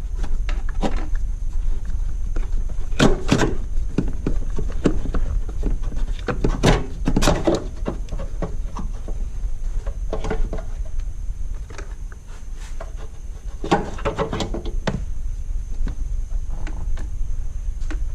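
Hard plastic knocks, clunks and scrapes as a coolant overflow reservoir is pushed and worked into its mount, its locating tabs forced into their holes. The knocks come in irregular clusters, loudest about three, seven, ten and fourteen seconds in, over a steady low rumble.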